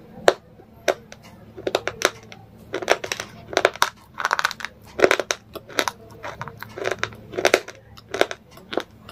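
A person chewing something hard and crunchy: an irregular run of sharp crunches and cracks, several a second.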